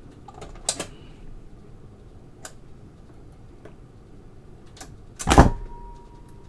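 Philips AG-1025 record changer running its automatic start cycle: a few light mechanical clicks as the tonearm lifts and swings across, then a louder thump about five seconds in as the stylus drops onto the spinning record.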